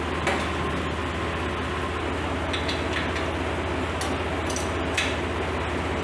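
Old International Harvester diesel tractor engine idling steadily, with a handful of sharp clicks and clinks as the wood chipper's PTO shaft and hitch pins are handled, a cluster near the middle and single ones about four and five seconds in.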